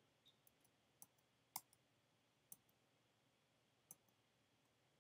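Near silence with about seven faint, scattered clicks from working a laptop's keys or trackpad, the loudest about a second and a half in.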